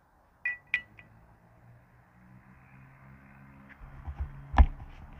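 Camera tripod being handled and adjusted: two light metallic clinks, then rumbling handling noise on the microphone with one sharp knock near the end.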